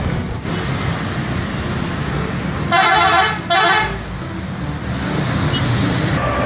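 Tour bus engine and road noise, with two short blasts of the bus's multi-tone air horn about three seconds in.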